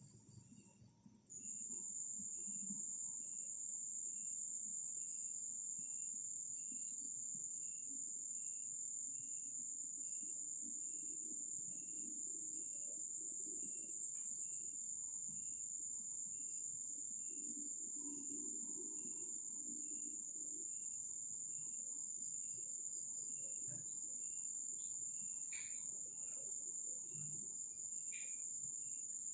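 Night insects trilling: one steady, high-pitched trill that comes in suddenly about a second in and holds, over a fainter chirp repeating about once every 0.7 seconds.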